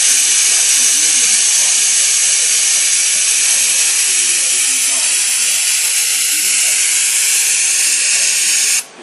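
Loud, steady hiss that cuts off suddenly near the end.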